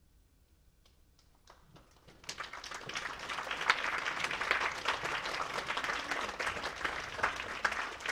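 Near silence, then a few scattered claps about a second and a half in that swell into steady audience applause just after two seconds.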